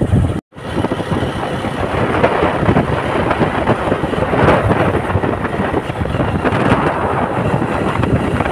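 Wind buffeting the microphone on a moving motorcycle, a dense steady rumble, with the sound cutting out for a moment about half a second in.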